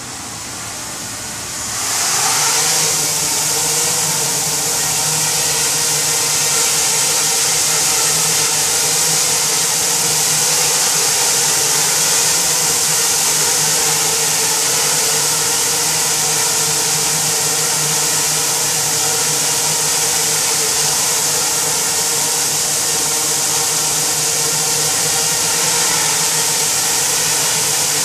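Propellers of six small quadcopter drones spinning up together about two seconds in as they lift off, then a steady high whir as they hover and fly in formation.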